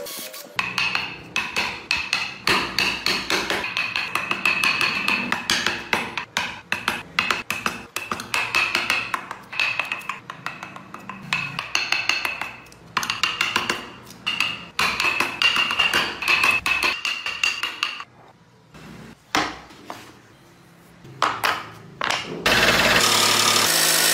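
Hammer rapidly striking a steel carving chisel into wood, a few sharp ringing taps a second. The taps thin out to a few scattered ones, then a band saw runs steadily and loudly near the end.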